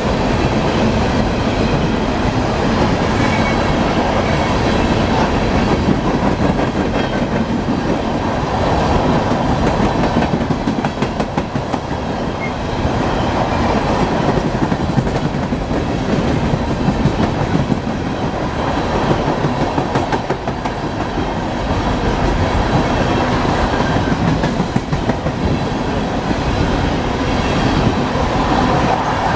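Coal train's hopper cars rolling past steadily, steel wheels clicking over rail joints over a continuous rumble of wheels on rail.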